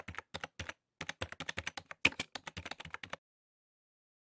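Computer keyboard typing sound effect: a rapid, uneven run of key clicks that stops about three seconds in.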